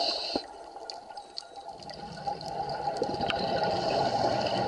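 Underwater scuba breathing through a regulator: a burst of exhaled bubbles tails off about half a second in, then quieter water noise with a few sharp clicks builds up again toward the end.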